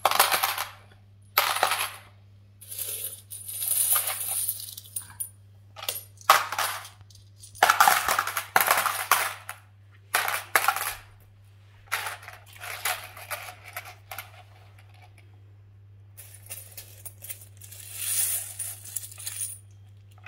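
Metal coins clinking and jingling in irregular bursts as a small child's hands scoop up and drop handfuls of them onto a pile of coins. There is a quieter stretch about two-thirds of the way through.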